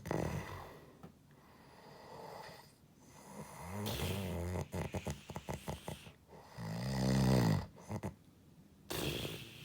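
A sleeping person snoring with pig-like snorts. A rasping snore about four seconds in breaks into a rapid fluttering rattle, a louder pitched snore follows about halfway through, and a noisy breath comes near the end.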